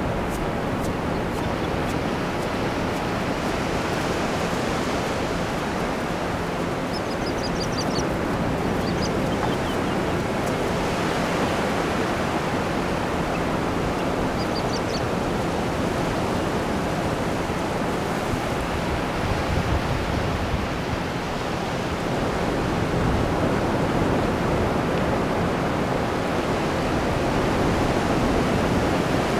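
Ocean surf breaking and washing up on a sandy beach: a steady rushing wash that swells a little louder toward the end.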